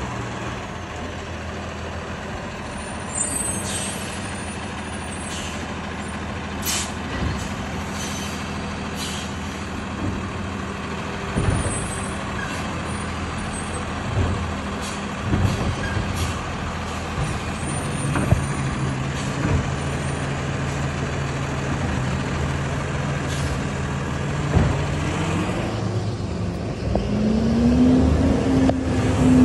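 Automated side-loader garbage truck running as it works its way along the street, with repeated short air-brake hisses and clunks. Near the end its engine revs up, rising in pitch and getting louder.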